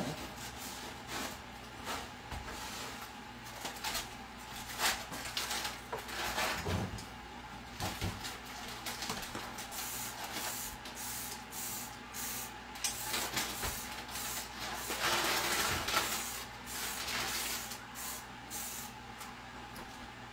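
A cloth wiping and scrubbing the sheet-metal surface under a raised electric range top, in irregular strokes that grow busier past the middle, with short hissing squirts from a trigger spray bottle of cleaner and small knocks.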